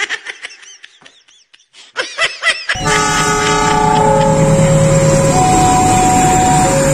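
Cartoon-style boing sound effects, with the pitch sweeping up and down in quick bouncing runs, for about the first three seconds. Then the loud steady rumble of a passing diesel passenger train sets in, and its horn sounds in alternating notes over it.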